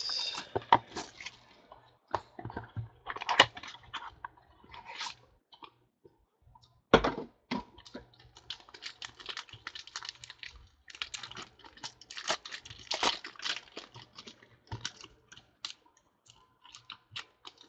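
Hands at work on a tabletop: irregular light clicks, taps and rustles with short pauses, and one sharper knock about seven seconds in.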